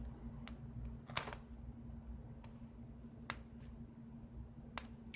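A few sharp, isolated clicks and taps of small tools and parts being handled during the tablet teardown, over a steady low hum.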